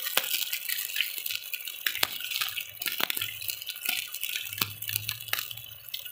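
Beef steak cooking in its juices in a clay cazuela, a steady sizzle with frequent crackling pops.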